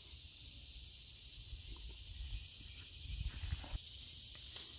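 Steady, high insect chorus over a low rumble that grows stronger about three seconds in.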